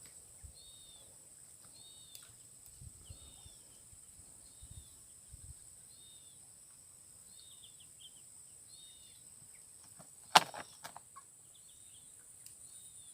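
A bird's short chirping call, repeated faintly about once a second over a steady high hiss, with a single sharp click about ten seconds in.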